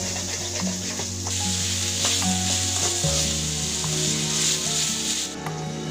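Chopped vegetables and onion sizzling in hot oil in a pan as they are stir-fried, with a spatula knocking and scraping against the pan now and then. The sizzle grows louder about a second in and drops back shortly before the end.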